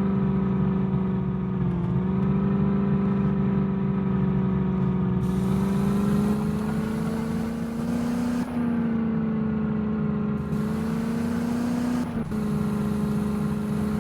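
Vehicle engine running at a fairly steady speed, its pitch drifting slightly up and down.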